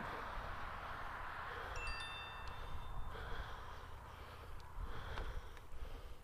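Bicycle bell rung once, a bright chime that starts about two seconds in and fades within about a second, over steady wind and tyre noise from the moving bike. A few faint clicks follow near the end.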